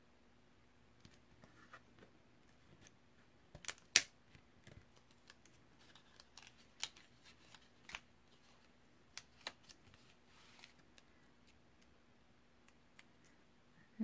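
Hands moving thin metal dies and cardstock on a clear acrylic cutting plate: scattered light clicks and taps with faint paper rustling, the sharpest click about four seconds in.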